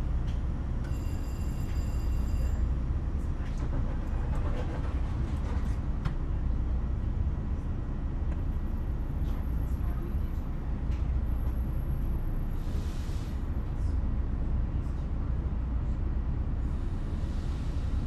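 Inside a train carriage: a steady low rumble of the train, with a short high electronic beep about a second in and scattered clicks and knocks a few seconds later.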